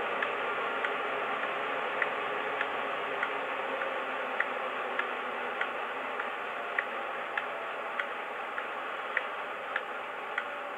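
Model HST's DCC sound decoder playing through its speaker: a steady hiss with a light tick about every 0.6 seconds.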